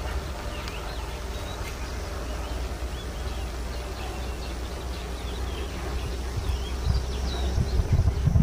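Grassland ambience: a steady low rumble, with many faint, short, high chirps scattered throughout and a few low thumps in the last couple of seconds.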